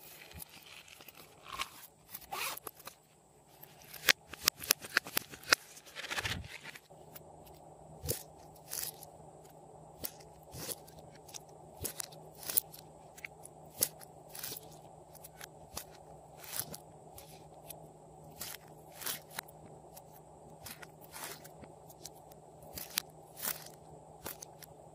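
Sticky slime being squeezed and pressed by hand, giving sharp clicks and crackles: a dense flurry about four to six seconds in, then single clicks every half second to a second.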